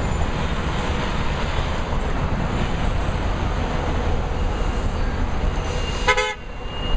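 Heavy city street traffic: a bus, cars and a fire engine passing close, a steady rumbling noise. Near the end comes one short vehicle horn honk.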